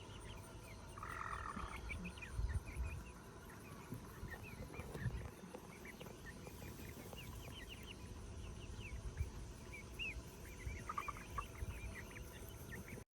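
Chickens in the paddock chirping with many short, high calls, with a louder trilling call about a second in and again near the end.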